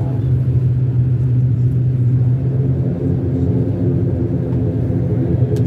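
Steady low drone of the ATR 72-500's Pratt & Whitney PW127 turboprop engines and six-blade propellers, heard from inside the cabin, with a strong hum and a stack of steady tones above it.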